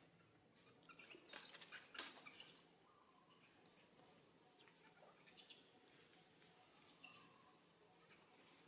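Faint, short, high-pitched animal chirps, a few at a time, with some soft clicks and rustles about a second in.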